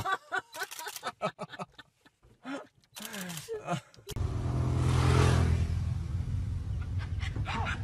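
A baboon on a car clambering over the windscreen and roof, a quick series of sharp taps and knocks with a brief voice among them. About four seconds in, this gives way to the steady low running of a vehicle engine close by.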